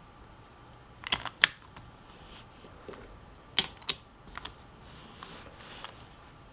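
Plastic puzzle pieces clicking together as they are handled and fitted: a quick cluster of three clicks about a second in, two sharp clicks a little after three and a half seconds, and lighter clicks after that.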